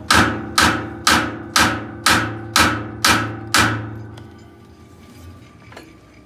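Hand hammer striking the steel hub of a multi-groove V-belt pulley to fit it onto a silage machine's shaft: eight sharp metallic blows about two a second, each with a ringing tone. The ringing dies away about four seconds in, leaving a few faint knocks.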